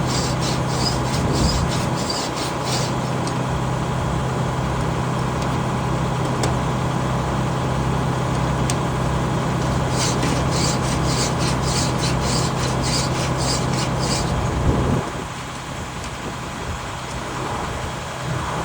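A hand file sharpening sawmill saw teeth: runs of even rasping strokes, about four a second, at the start and again partway through, over a steady low hum that stops about three seconds before the end.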